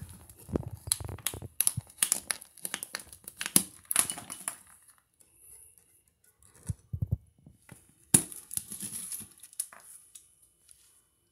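Gloved hands working a spider wrap security device and its wire cables off a shrink-wrapped box with a metal tool: a quick run of clicks and rattles of the hard plastic alarm head and cables, with crinkling of the plastic wrap. It goes quiet for a moment, then come a few dull knocks and one sharp click about eight seconds in.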